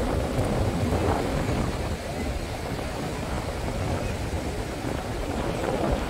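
Wind buffeting the microphone with a steady low rumble, over the wash of surf on the beach.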